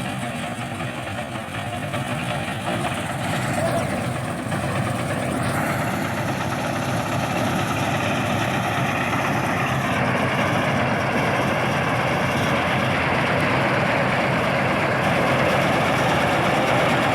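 Engine of harvesting machinery running steadily, growing gradually louder.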